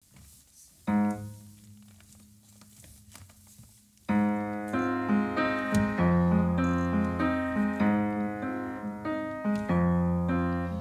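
Upright piano playing a song's introduction: one chord about a second in, left to ring and fade, then from about four seconds in steady chords over low bass notes.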